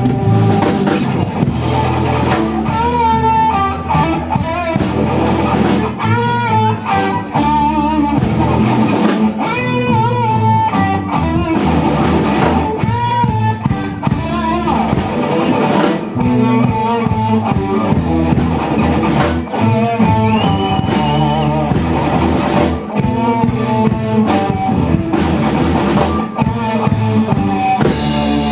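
Live rock trio playing: electric guitar leads with long wavering, bent notes over bass guitar and a drum kit.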